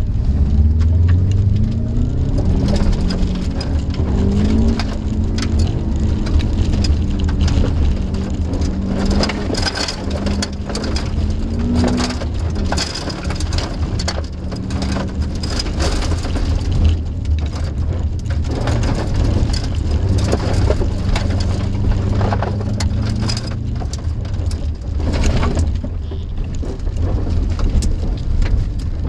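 Inside the cabin of a 2002 Subaru WRX driven hard on a gravel rallycross course. The turbocharged flat-four engine drones, its pitch rising and falling with the throttle, while loose gravel rattles constantly against the underbody and wheel wells.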